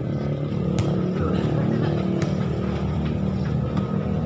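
A motor vehicle engine runs steadily with a low rumble. Over it come three sharp smacks of a volleyball being hit during a rally.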